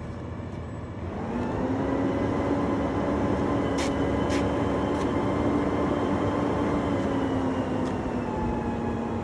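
An engine speeds up about a second in, runs steadily at the higher speed, then eases off slightly near the end. A few faint clicks sound over it.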